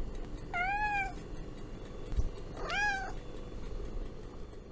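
A domestic cat meowing twice, once about half a second in and again near the three-second mark, each meow rising and then falling in pitch.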